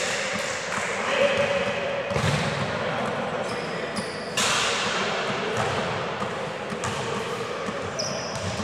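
Indoor futsal play on a hard sports-hall court: thuds of the ball being kicked and bouncing, a couple of short high shoe squeaks on the floor, and a player calling out about a second in.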